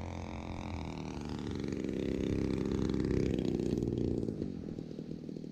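Stinger 26cc two-stroke gas engine of a large RC model biplane on its landing approach. It runs steadily, swells louder as the plane comes near about two to three seconds in, then falls away after about four seconds.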